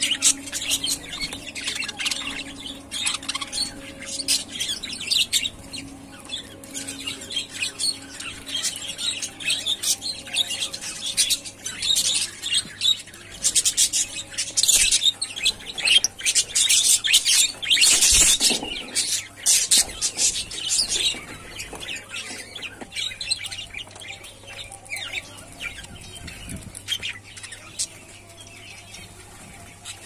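A flock of budgerigars chattering with rapid, high chirps and twitters, busiest in the middle and thinning out near the end.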